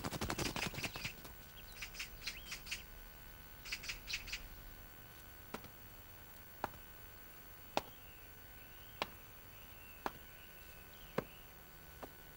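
Small birds chirping and twittering, busiest at the start, then slow, evenly spaced footsteps tapping about once a second from about halfway through.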